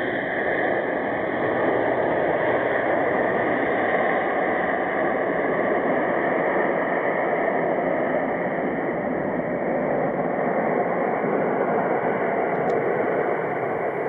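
Jet engines of a Boeing 767 airliner giving a steady rush of noise as the plane rolls out and slows down after landing. A single short tick comes near the end.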